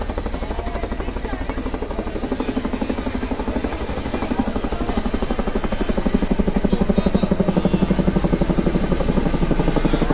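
Helicopter flying overhead, its rotor beating in a fast, steady rhythm that grows louder about six seconds in.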